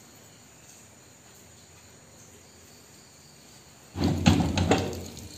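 Quiet steady background for about four seconds, then a sudden loud clatter of several knocks and rattles from the welded steel well door being handled.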